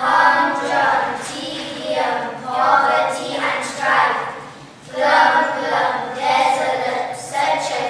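A group of children singing together, like a school choir, in phrases about a second long with short breaths between them.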